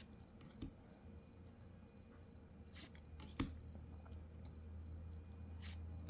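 Quiet handling of trading cards: a few faint, scattered clicks and taps as cards are flipped, over a low steady hum.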